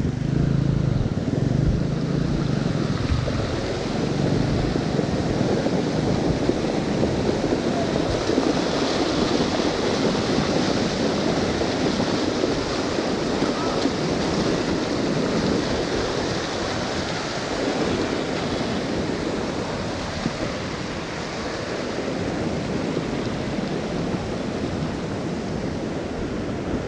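Glacier-melt mountain stream rushing across the road: a steady wash of fast-flowing water.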